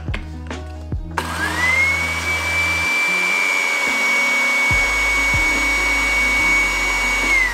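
Countertop blender grinding dry nori sheets: the motor starts about a second in, its whine rising quickly to a steady high pitch, and starts winding down at the very end.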